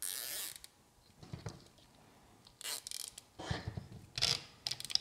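Nylon zip ties being pulled through their locking heads: a quick zipping ratchet right at the start, then shorter rasps a little before three seconds and twice near the end, with light handling sounds between.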